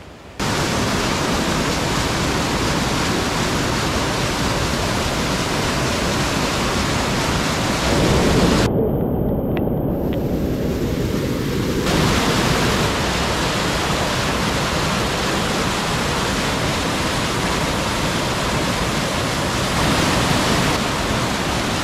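A steady, loud rushing noise with no distinct tone that starts abruptly. Its higher part drops out for about three seconds near the middle.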